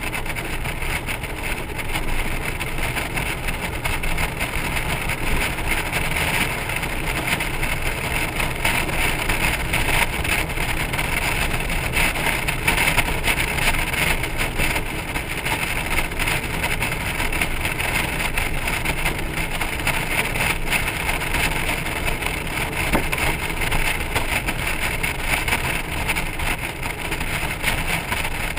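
Steady wind and road noise from a Honda Gold Wing motorcycle and its trailer at highway speed, with wind buffeting the trailer-mounted camera's microphone.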